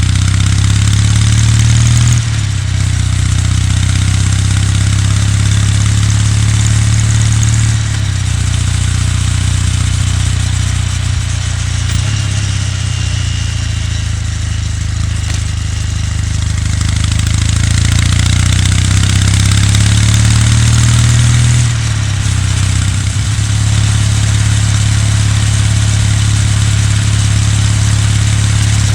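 Kawasaki W800's air-cooled parallel-twin engine and exhaust while riding, with wind and road noise. The engine note climbs and drops off twice, about two seconds in and again near twenty-two seconds, as a gear change or a roll-off of the throttle, and holds steady in between.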